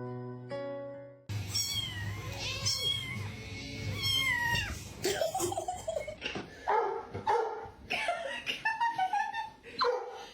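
A cat meowing over and over in calls that bend up and down in pitch, after about a second of plucked guitar music that cuts off.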